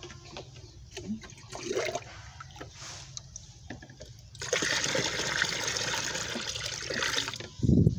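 Water pouring and splashing in a plastic tub for about three seconds, starting about halfway through, after a few light knocks of handling. A short low thump comes near the end.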